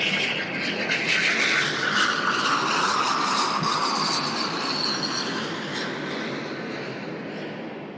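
Airbus A319 jet passing on its landing approach, its engines whistling, the whistle sliding down in pitch as the plane goes by and the sound slowly fading.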